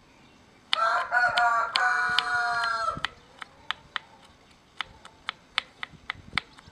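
A rooster crows once, loud and about two seconds long, near the start. Under it and after it, the sharp taps of a knife mincing garlic on a wooden board, about three a second.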